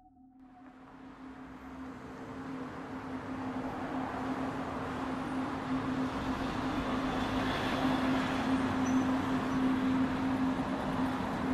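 Vehicle noise fading in from silence and swelling steadily, a rushing sound with a steady low hum beneath it.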